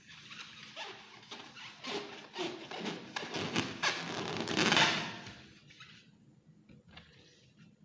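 Hands rubbing and squeezing an inflated latex balloon: a busy run of rubbery squeaks and rubbing, loudest a little before five seconds in, dying away about a second later.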